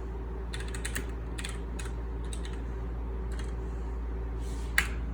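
Typing on a computer keyboard: a handful of key clicks, then one sharper, louder keystroke near the end, over a steady low hum.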